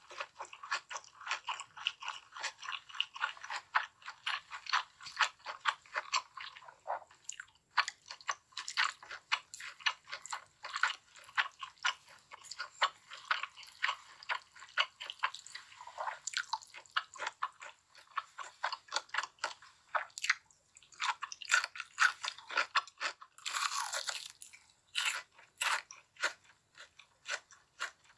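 Close-miked eating of crispy fried chicken: rapid, crisp crunching and chewing bites, broken by a few short noisy rushes.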